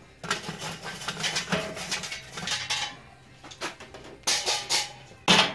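Hot charcoal briquettes clattering out of a metal chimney starter into a kettle grill, rattling onto the steel charcoal grate and against the metal bowl. A few louder clanks come near the end.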